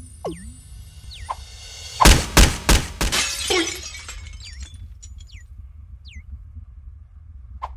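Cartoon sound effect: a quick run of four loud crashes about a third of a second apart, about two seconds in, followed by a shattering smash. Short falling chirps sound before and after it, over a low hum.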